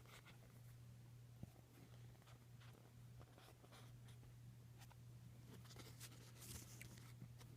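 Near silence: a steady low hum with faint scattered ticks and rustles of trading cards being handled.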